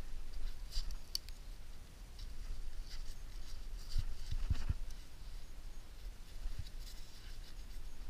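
Gloved hands handling a heavy soil-caked object, soil scraping and crumbling with light scratchy rustles. A few dull thumps come about four to five seconds in.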